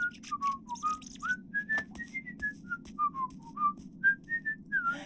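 A tune whistled in short, hopping notes, with light clicks between the notes over a low, steady hum.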